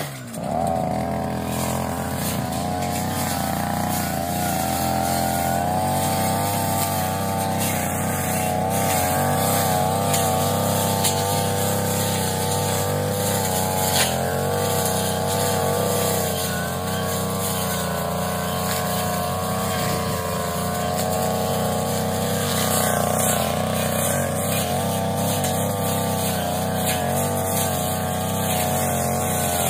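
Brush cutter engine running steadily at working speed while cutting grass, its pitch wavering slightly up and down.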